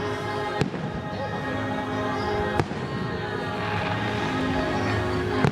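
Fireworks show: three sharp firework bangs, about half a second in, near the middle and at the end, the last the loudest, over the show's music soundtrack.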